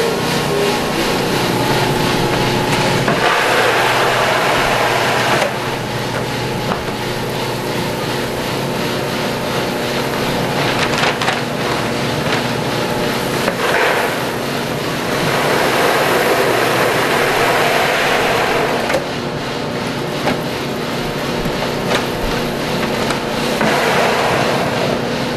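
Commercial coffee roaster running after a roast: its cooling-tray fan blowing steadily while the stirring arms sweep freshly roasted beans around the tray. Three times the rushing, rattling noise swells for a few seconds, as beans are let out of the tray's chute into a bag.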